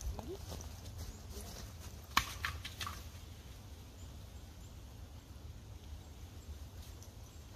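A short run of light crunching steps in thin snow about two seconds in, over a steady low rumble.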